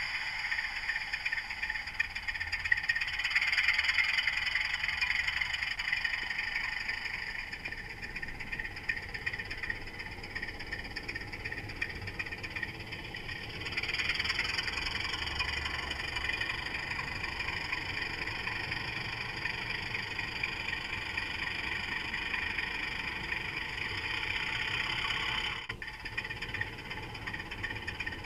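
Model Class 24 diesel locomotive running along the track, its small motor and gears whirring and buzzing, with a fine, fast rattle of wheels on the rails. It gets louder and quieter as it goes, and near the end there is a click and the level drops suddenly.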